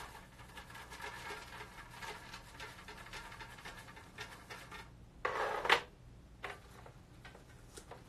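Folded paper slips rustling in a small box as a hand stirs through them to draw one. About five seconds in there is a short, louder rustle, followed by a few light crinkles as a slip is handled.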